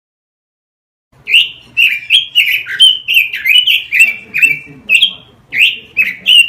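Red-billed leiothrix (Pekin robin) singing: after about a second of silence, a fast, loud run of short clear notes, each falling in pitch, about three a second.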